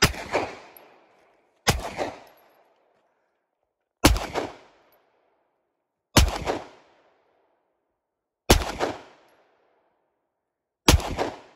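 Six single shots from a compact semi-automatic carbine, fired slowly about two seconds apart. Each shot has a short echoing tail that dies away before the next.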